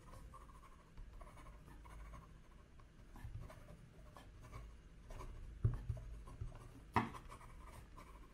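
Medium-point fountain pen nib writing quickly on paper: faint scratching of the pen strokes, with two sharper taps in the last third. The ink flow keeps up with the fast writing, without skipping.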